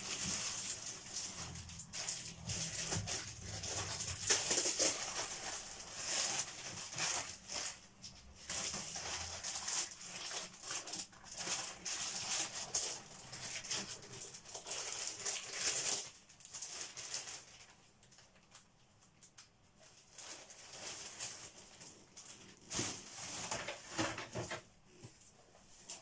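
Off-camera rummaging: scattered rustling, clicks and knocks of things being moved about while someone searches for a vacuum cleaner dust bag, dying down in the last third.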